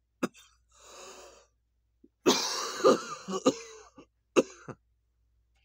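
A man coughing from a hit of a cannabis vape cartridge: one sharp cough, a wheezy breath out, then a run of several hard coughs about two seconds in and one more cough near the end.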